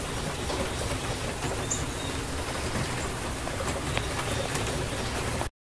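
Recorded rainstorm: a steady hiss of rain with scattered drop ticks, with footsteps on cement mixed in, cutting off abruptly near the end as playback stops.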